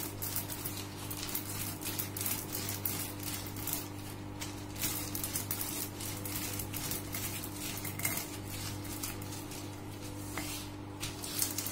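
Wooden rolling pin rolled back and forth over dried coriander seeds on newspaper, with the seeds cracking into halves in an irregular crackle of small clicks and the paper rustling.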